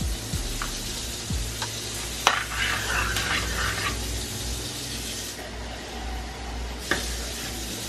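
Chicken stew in a stainless steel skillet sizzling over the heat while a metal spoon stirs it, with a few light clicks of the spoon against the pan.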